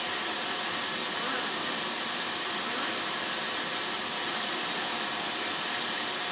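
Vacuum cleaner running steadily, an even whooshing motor hiss that does not change.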